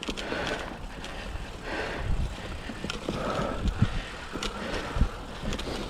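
A 2007 Cannondale Rush mountain bike rolling over a dirt trail: steady tyre noise with wind on the microphone, and a few short knocks and rattles as it goes over bumps.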